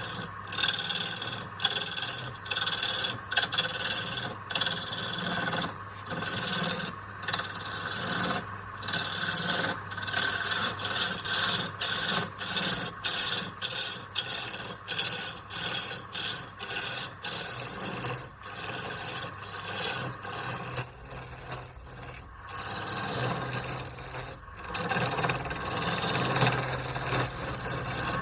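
Wood being worked by hand with a tool in repeated rasping strokes, about two a second, with short breaks between strokes.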